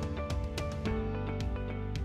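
Background music: a gentle track with plucked, strummed guitar and a steady beat.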